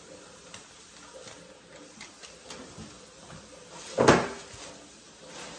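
Paper and cardboard packaging being handled: faint rustles and light taps, then one loud, brief rustle about four seconds in as a piece of packaging is pulled from the box.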